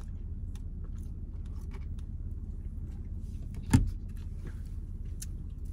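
Steady low rumble inside a car, with a few faint small ticks and one sharp knock a little past halfway through.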